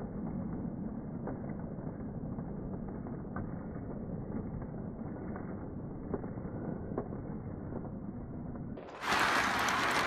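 O-gauge model train cars rolling past on three-rail track: a steady rumble of wheels with a few clicks spread through it. Near the end it gives way to a sudden, much louder rush of noise.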